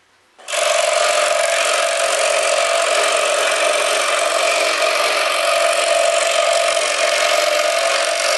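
Scroll saw running and cutting thin plywood, a steady buzz with a constant tone that starts abruptly about half a second in.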